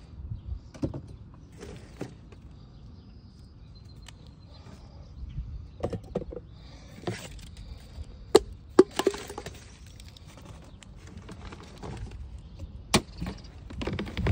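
Zamberlan GTX hiking boots stepping and scuffing on concrete paving, with a few sharp clicks and knocks, the loudest a pair about eight seconds in and one near the end, over a steady low rumble.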